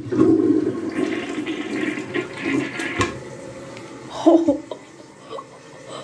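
Mansfield Maverick dual-flush toilet flushing: water rushes loudly through the bowl for about three seconds, then dies down. The bowl is loaded with 25 feet of toilet paper, and the flush is too weak to clear it.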